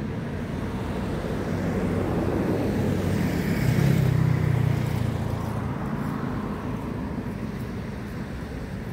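A motor vehicle passing by: its engine hum and road noise swell to a peak about four seconds in, then fade away.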